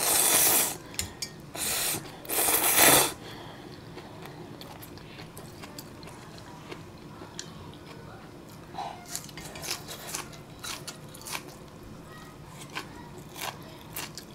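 Ramen noodles slurped in three loud slurps over the first three seconds, followed by quieter chewing with scattered small clicks and crunches.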